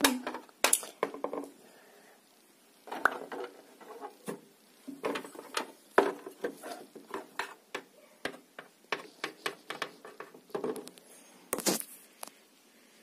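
A small plastic toy figure tapping and clicking against the plastic floor of a toy play house as it is moved along by hand, in irregular clusters of light knocks.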